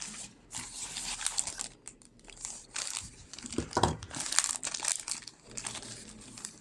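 Crinkling and rustling of small parts being handled, with one louder knock near the middle.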